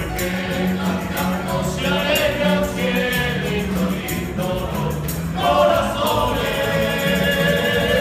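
A university tuna sings: a chorus of men's voices over strummed Spanish guitars and bandurria-style lutes.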